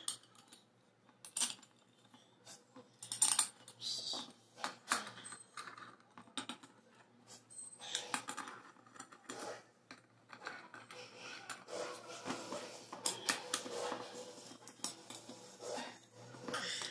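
Scattered sharp metallic clicks and clinks of a socket driver on the bolts of an electric water pump's aluminium housing as its cover is fitted and bolted down, busier in the second half.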